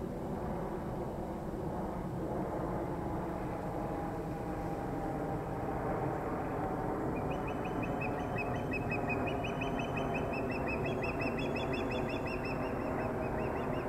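Steady low outdoor rumble with birds calling: from about halfway through, a rapid run of short, high, repeated calls that keeps going to the end.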